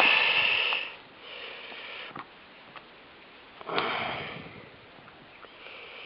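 A person sniffing and breathing through the nose, about four breaths of a second or so each, the fullest one about four seconds in, with a couple of faint clicks in between.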